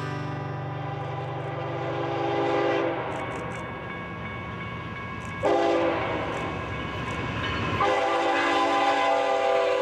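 Diesel locomotives at the head of a double-stack intermodal freight train approaching with a steady engine rumble while the air horn sounds: a blast fading out in the first three seconds, then a long blast starting suddenly about five and a half seconds in and continuing.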